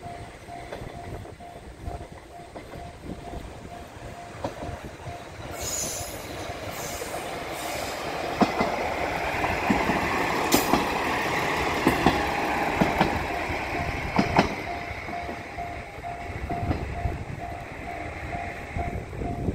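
Diesel railcar on the Kitto Line running along the track. The wheel and rail noise swells through the middle, with sharp clacks from the rail joints every second or two, then eases off toward the end.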